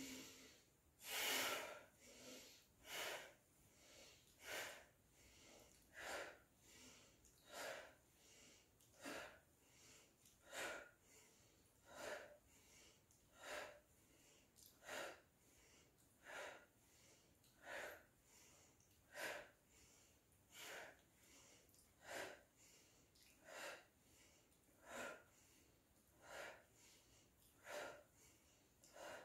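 Faint yoga breathing exercise: a sharp breath pushed out through the mouth about every second and a half, with quiet breaths in through the nose between, in a steady rhythm.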